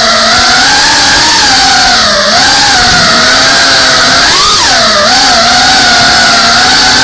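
FPV drone's brushless motors and propellers whining, heard loud from the camera on the drone itself. The pitch rises and falls as the throttle changes, with a quick rise and drop about four and a half seconds in.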